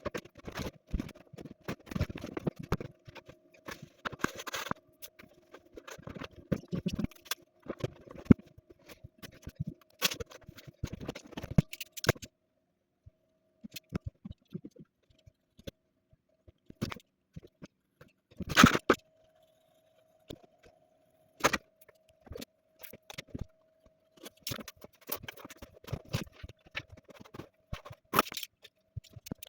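Irregular clicks, taps and rattles of tools being handled during linoleum seam welding, over a faint steady hum that drops out for a few seconds in the middle, typical of a hot-air welding gun running.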